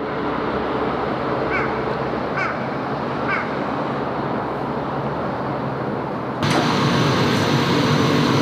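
Steady outdoor background noise with a bird calling three times, short chirps about a second apart. About two-thirds in, it cuts to louder, steady factory machinery hum with a low drone and faint high whines.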